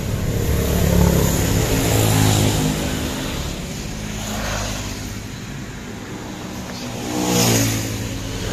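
A motor vehicle's engine swells up and fades twice, about a second in and again near the end, over a steady rushing noise.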